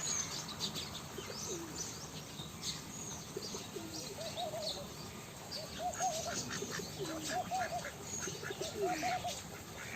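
Doves cooing in short repeated phrases of about three notes, with small birds chirping throughout.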